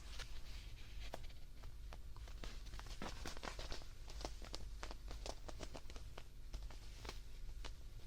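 Close-miked handling of a plush teddy bear: irregular scratching and crackly clicks, busiest in the middle, over a low hum.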